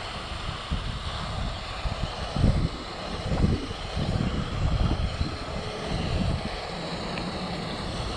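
Wind buffeting the microphone, a low rumble that comes and goes in uneven gusts.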